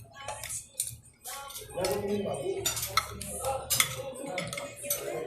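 Spoon and fork clinking and scraping against a plate while eating, a string of short sharp clinks at irregular intervals.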